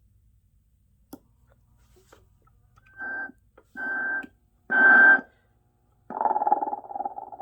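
Telco animated snoring Santa's sound chip playing a snore through its small speaker: a click, then three short breaths about a second apart that grow louder, then a longer, fluttering snore from about six seconds in.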